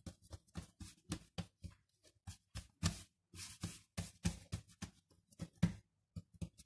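Hands kneading and shaping a ball of bread dough on a floured wooden worktop: a string of short, irregular pats and rubs, a few each second.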